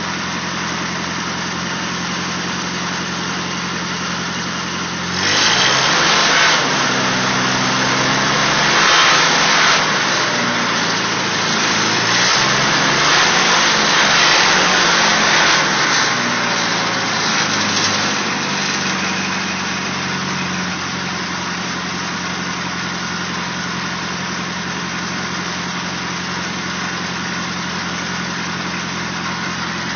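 Willys CJ2A Jeep's four-cylinder L-134 "Go Devil" flathead engine, freshly tuned up, idling steadily. About five seconds in it is revved up and down for some ten seconds, then settles back to a steady idle.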